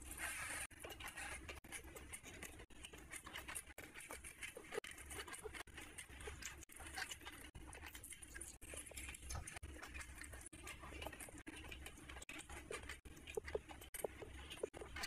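Close wet chewing and lip-smacking of rice and curry eaten by hand, many small irregular clicks and smacks, with fingers squishing through the rice near the end.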